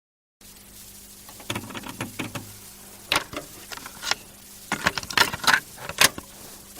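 Irregular clicks and knocks, some close together and some spaced out, over a steady low hum that starts about half a second in.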